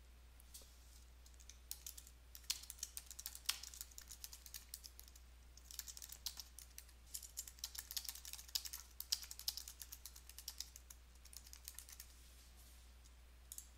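Faint computer-keyboard typing: runs of quick keystrokes with a short pause partway through, over a steady low hum.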